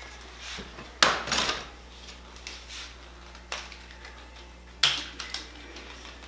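Hard plastic printer parts and packing pieces being handled and set down on a wooden table: a few sharp knocks and clatters, about a second in, around the middle, and a pair near the end, over a low steady hum.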